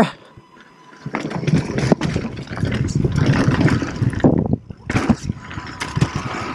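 Mountain bike descending a loose dirt trail: tyres rolling and skidding over dirt and stones, frame and chain rattling, with wind rushing over the mic. It starts about a second in and dips briefly near the end.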